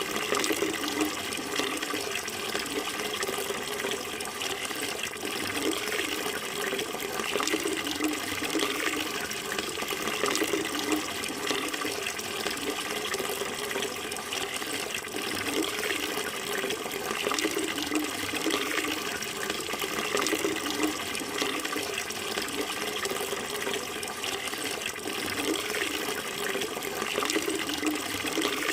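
Running water flowing steadily: an even, unbroken rush with no pauses or changes.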